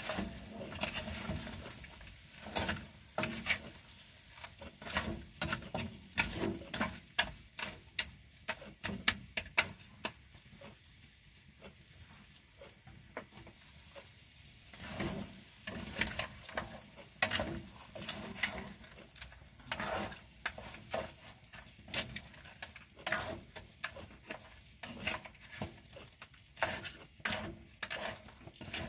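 Spatula stirring and turning whole yabbies (freshwater crayfish) in a wok, many irregular scrapes and clicks against the pan over a faint frying sizzle, with a quieter lull in the middle.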